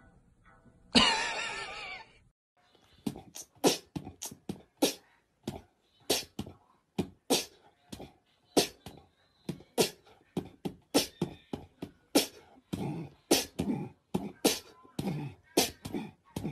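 A dog gives a loud wavering whine for about a second near the start. Then a cat hisses and spits in a long run of short sharp bursts, about two or three a second, irregularly spaced.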